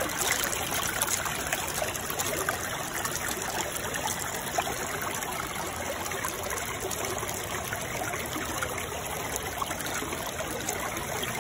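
Steady trickling, running water like a small stream.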